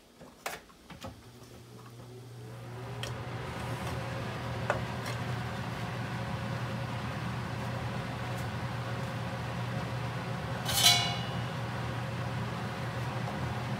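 Water at a rolling boil in a pan on an electric cooktop: a steady seething noise with a low hum that comes in about a second in. A single sharp metallic clink sounds near the end.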